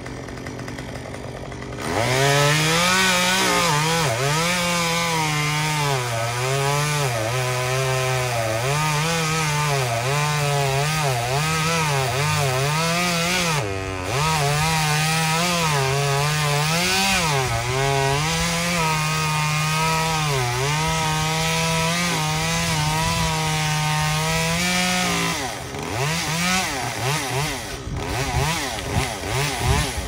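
Two-stroke chainsaw idling, then opened to full throttle about two seconds in and cutting through pecan wood for over twenty seconds. Its pitch sags and recovers again and again as the chain bites under load. Near the end it drops off the cut and is revved up and down in short blips.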